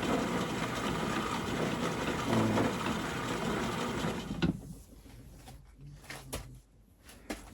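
Logan 210 metal lathe running steadily with a newly mounted four-jaw chuck spinning. The sound drops away suddenly about four and a half seconds in as the lathe is switched off, leaving a few faint clicks.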